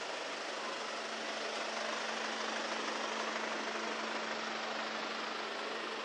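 Steady street noise with a low, even hum of an idling engine.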